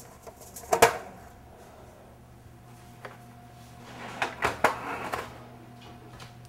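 Metal baking tray holding aluminium ramekins, handled out of an oven and set down on an electric stovetop. There is one sharp clank about a second in, then a quick cluster of metal clanks around four to five seconds in as the tray lands on the stove.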